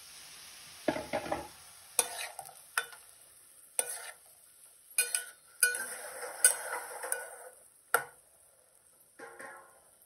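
Steel ladle stirring mushroom pieces and green chillies in a metal pot: a string of irregular sharp clinks and short scrapes of metal against metal, with quiet gaps between strokes.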